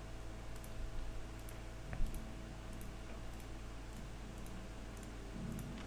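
A few faint computer mouse clicks, one about two seconds in standing out, over a steady low hum and hiss from the recording microphone.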